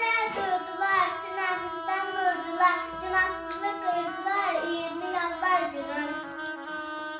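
A child singing over background music of long held notes. The voice stops about six and a half seconds in while the music holds on.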